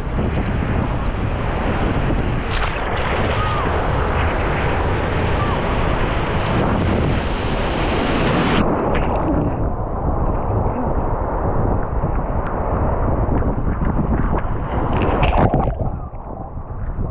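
Wind buffeting the microphone, mixed with the steady wash of ocean surf; the sound turns duller about eight seconds in.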